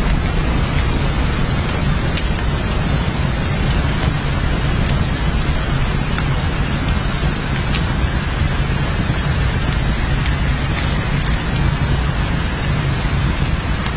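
Steady heavy rainfall, a dense even hiss with a deep low rumble beneath it and scattered sharp drop ticks on top.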